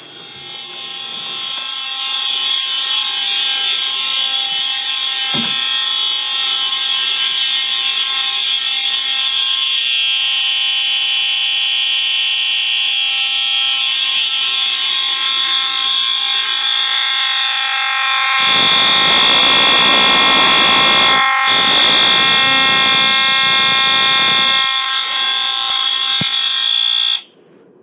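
Fire alarm horns, among them a Wheelock MT-24-LSM horn-strobe set to continuous horn, sounding a steady, harsh, buzzing tone. It grows louder over the first few seconds and is very loud. A rough rubbing noise joins for several seconds in the second half, and the horns cut off suddenly near the end.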